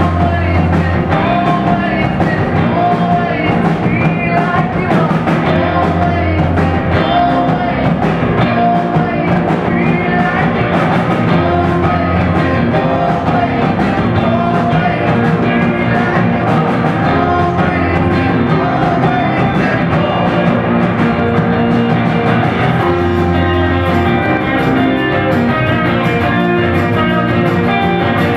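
Rock band playing live: electric guitars over a drum kit and bass, with a lead singer's voice.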